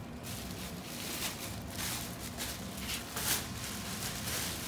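Clear plastic packaging bags rustling and crinkling as an electric scooter is pulled out of its cardboard box, with one louder rustle a little over three seconds in.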